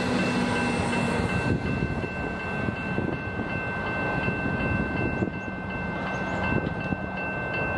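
Railway level-crossing bells ringing steadily while a suburban electric train rumbles past the crossing. The train's low drone drops away about a second and a half in, leaving the bells ringing over the fainter rumble of the train further off.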